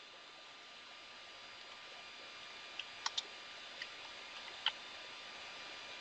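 Computer keyboard keystrokes: about five sparse, sharp key clicks, in the second half, over a steady faint hiss.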